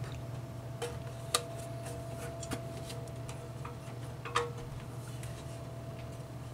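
A few light clicks and taps as hands handle and turn over a single-burner propane stove with a thin sheet-metal body, over a steady low hum.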